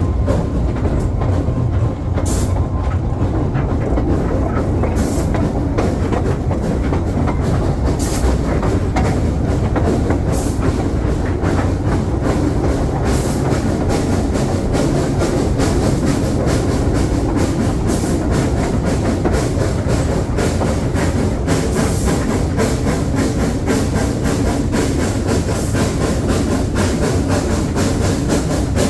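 Narrow-gauge train running along the track: a steady rumble with many short clicks of the wheels passing over rail joints.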